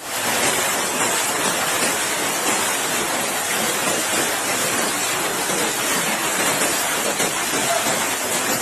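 Heavy storm downpour pelting down, a dense steady hiss that starts abruptly and holds without a break.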